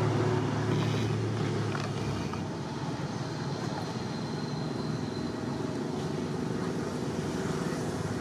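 Steady outdoor background noise with a low vehicle-engine hum that stops about two seconds in, leaving an even rushing hiss.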